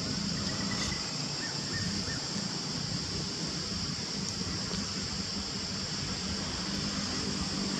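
Steady outdoor background noise with a constant high hiss and a low hum beneath it.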